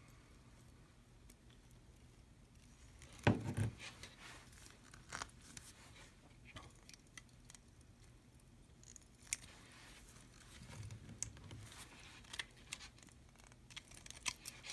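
Hand tools working steel fishing cable and crimps: scattered small metallic clicks and snips, with one louder knock about three seconds in.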